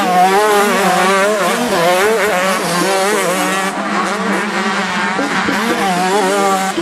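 Several 125cc two-stroke motocross bikes racing, their engine pitch rising and falling over one another as riders take the jumps, with a steady low drone underneath.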